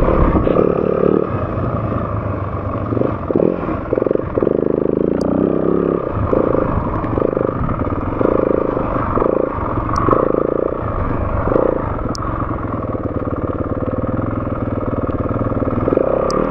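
Dirt bike engine running at low speed on a rough trail, the throttle opened and shut in short surges every second or so, with the bike clattering over bumps and a few sharp clicks.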